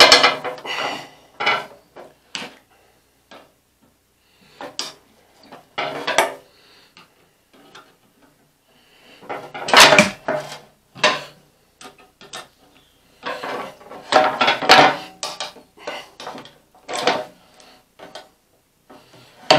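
An adjustable wrench clinking and clanking against the metal head of a frost-free yard hydrant as it is fitted and turned on the nut. The knocks and scrapes come in irregular bursts with a short metallic ring, busier about ten and fifteen seconds in.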